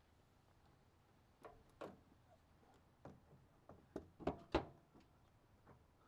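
Sharp clicks and knocks from a microwave oven door being worked off its hinges: a few scattered clicks, then a quick run of louder knocks about four seconds in.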